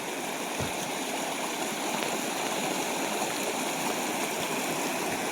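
Rushing water of the Tizü River, flowing steadily with no break.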